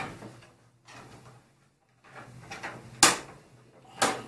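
Plastic trim on a Kawasaki Z650's fuel tank being worked loose by hand: a few light clicks, then two sharp plastic clicks about a second apart, the first of them the loudest.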